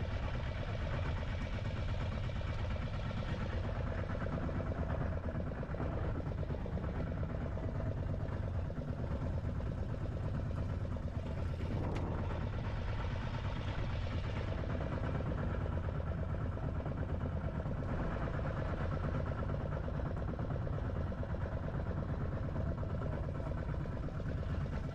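Small fishing boat's motor running steadily at a low, even hum.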